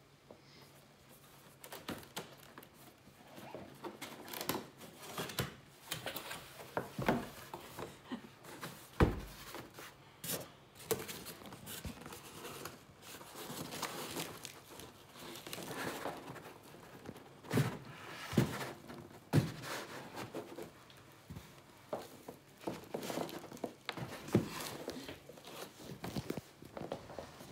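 Cardboard and styrofoam packaging being handled by hand: rustling, scraping and irregular knocks of box parts against each other and the table, with a loud thump about a third of the way in.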